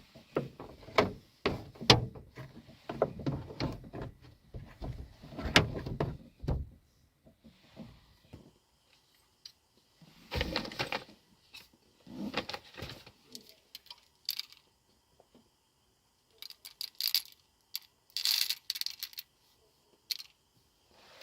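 Cups, containers and utensils being handled while a hot drink is made: a busy run of small clinks, knocks and rustles for the first several seconds, then scattered clicks and short rustles.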